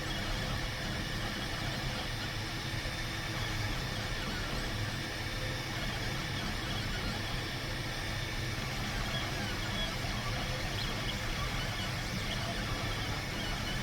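3D printer running a print: a steady mechanical hum with thin, high whining tones from its motors.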